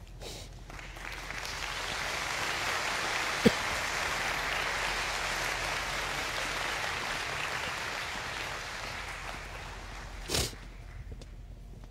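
Large audience applauding, swelling up over the first couple of seconds and dying away near the end. A single sharp click sounds about three and a half seconds in, and a short louder noise comes near the end.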